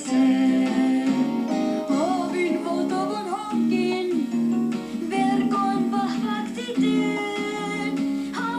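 A song with plucked acoustic guitar and a singing voice.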